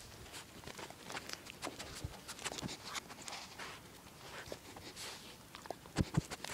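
Close scratchy rustling and clicks as dogs' fur and a hand brush against the phone's microphone, with two dull thumps near the end.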